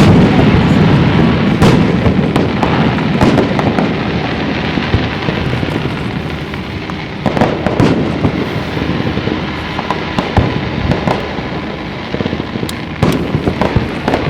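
Aerial fireworks exploding in a dense, overlapping run of bangs and crackles, loudest near the start, with a few sharper single reports later on.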